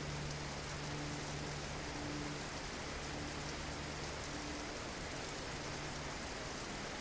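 Waterfall water rushing, a steady even noise.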